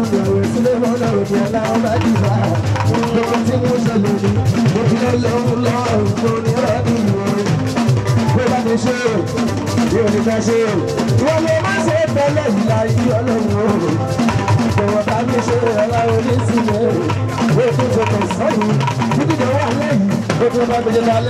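Live fuji music: a man singing into a microphone over a band of drums and percussion.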